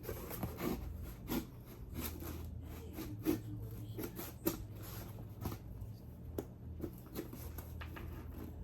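Cardboard shipping box being handled and opened by hand: scattered taps, scratches and rustles of cardboard and packing material.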